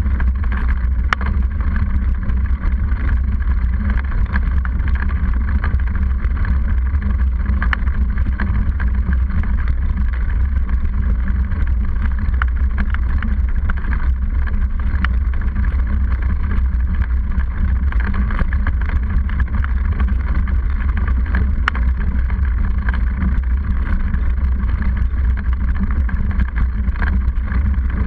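Steady low rumble of wind buffeting and road vibration picked up by an action camera mounted on a mountain bike's handlebars, as the knobby front tyre rolls over a concrete road, with scattered small clicks and rattles from the bike.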